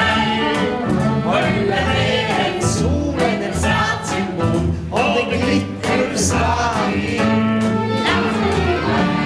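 Singing with instrumental accompaniment: a stage revue song performed live.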